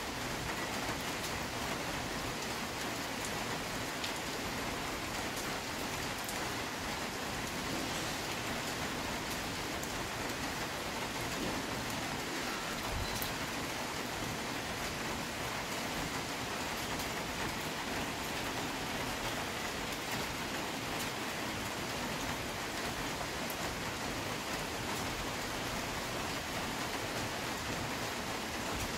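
Steady rain falling on a dense tree canopy, an even hiss with a few sharp drop ticks close by.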